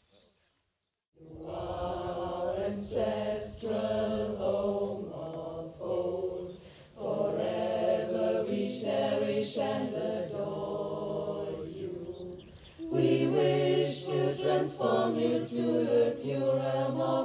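Mixed choir of men's and women's voices singing in several parts. It comes in about a second in after a moment of silence, with fresh phrases starting around seven seconds and, louder, around thirteen seconds.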